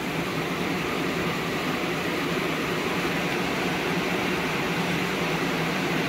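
Tesla Model Y's climate-control fans blowing on high, a steady rush of air inside the cabin, as the heat-pump system preheats the car.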